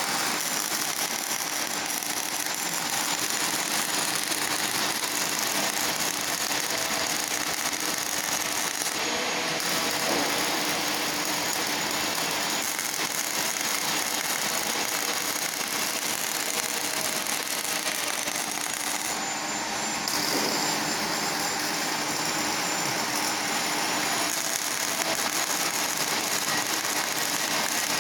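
CO2 MIG welding arc crackling and sizzling steadily, with a faint steady tone underneath.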